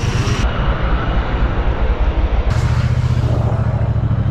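Motorcycle engine running under way, with a throbbing low note and a steady rush of wind noise on the mic. The engine note grows fuller and steadier about two and a half seconds in.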